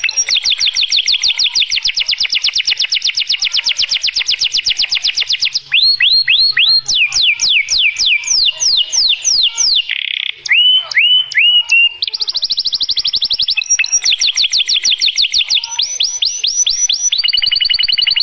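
Domestic canary singing a long, varied song: long runs of very rapid trilled notes, broken in the middle by a passage of slower, separate falling whistles, then rapid trills again.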